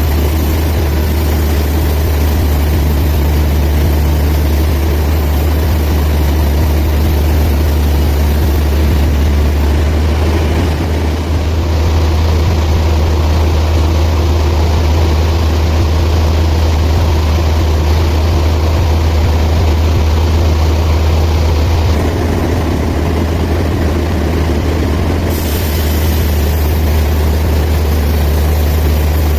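Band sawmill running with a steady low drone and a rushing noise above it; the higher noise shifts a few times, about a third of the way in and again near the end.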